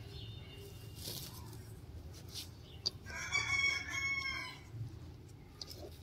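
A rooster crowing once, about three seconds in, for about a second and a half.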